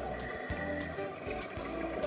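Background music with sustained notes and a low bass line, the chords shifting about once a second.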